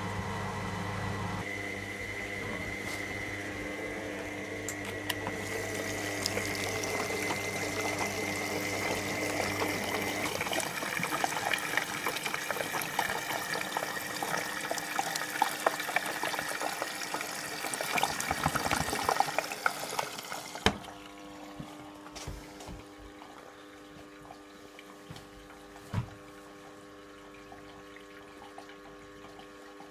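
Electra AWF683 washing machine taking in water during its prewash fill, the water rushing through the detergent drawer into the drum, then the inlet stopping abruptly about twenty seconds in. A low hum stops a second or so in, and a faint steady machine hum remains after the water stops.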